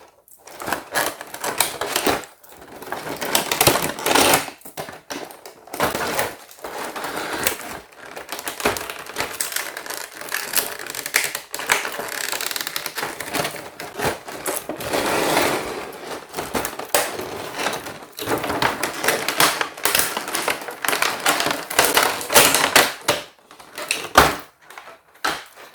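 Plastic packaging crinkling and rustling as small plastic toy furniture pieces are unpacked, with many quick irregular clicks and taps of the pieces being handled.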